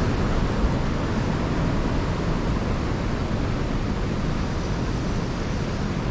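Steady rushing of fast-flowing river water, a constant even noise with a heavy low rumble.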